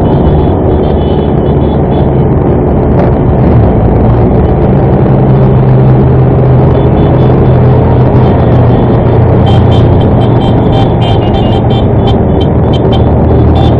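Motorcycle engine running steadily at low speed, heard from on board with other motorcycles riding close ahead; its note steps up slightly about five seconds in. A quick run of sharp ticks joins in the last few seconds.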